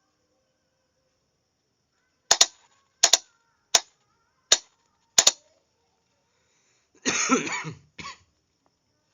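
Morse code sent by hand as sharp clicks, with no tone: some single clicks and some close pairs, sent slowly about two-thirds of a second apart. Near the end comes a short, rough burst of noise and a second, briefer one.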